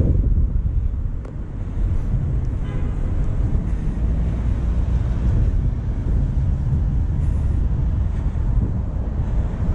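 Wind buffeting the microphone outdoors, a steady low rumble that swells and dips, with a faint hum of street traffic underneath.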